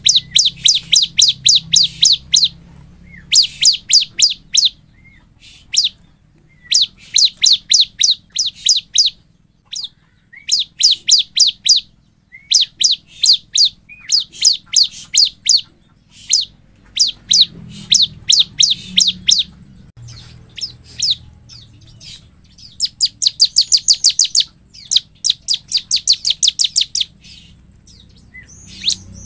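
A bar-winged prinia (ciblek) singing hard: fast runs of sharp, high chirping notes, about four or five a second. Each run lasts one to three seconds, with short pauses between runs.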